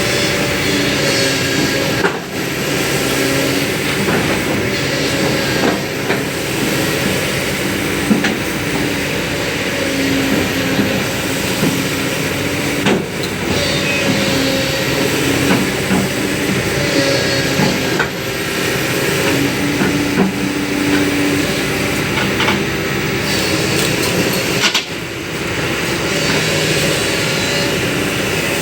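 Kobelco SK200 hydraulic excavator working, its diesel engine running under load with the pitch shifting as the hydraulics work. There are a few sharp knocks, and the sound dips briefly twice.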